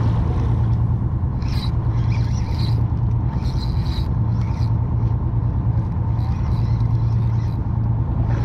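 Steady low hum from the boat's machinery, with several short spells of scraping, rasping whir as a spinning reel is cranked to bring in the line.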